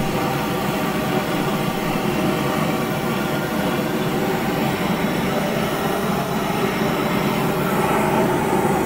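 GrillGun handheld propane torch burning steadily, its flame directed into lump charcoal to light it: an even rushing sound with a faint steady hum in it.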